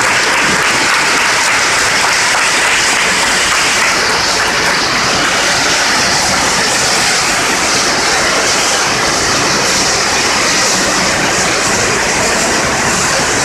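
Pyrotechnic fountains, fired remotely, spraying sparks with a loud, steady hiss.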